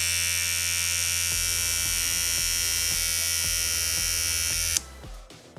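Remington PG6110 electric grooming trimmer running with a steady buzzing hum, held close, then stopping abruptly near the end. It is the louder machine of the two being compared.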